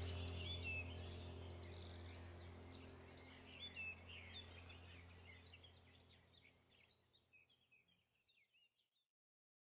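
Background soundtrack of bird chirps over a low steady drone, fading out gradually until it is gone near the end.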